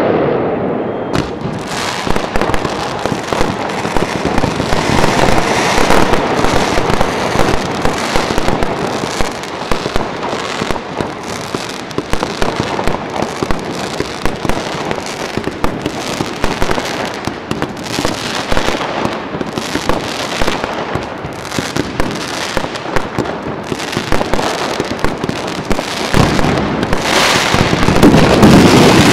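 Fireworks display going off in a dense, continuous barrage of bangs and crackles, swelling louder near the end.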